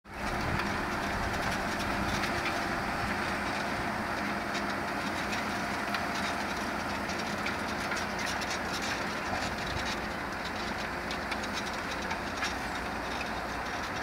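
JCB Fastrac 4220 tractor running steadily under load as it pulls a five-furrow reversible plough through the soil, with a faint clatter over the engine. The sound cuts in suddenly from silence at the start.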